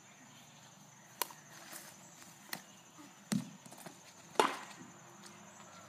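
Four sharp knocks at uneven intervals of about a second, like something hard striking wood; the last is the loudest, and the third is a duller thud.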